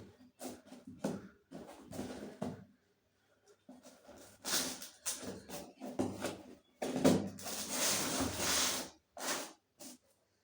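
iPhone packaging being handled and opened: short taps and clicks, with rustling, scraping bursts of cardboard and plastic, the longest lasting about two seconds past the middle.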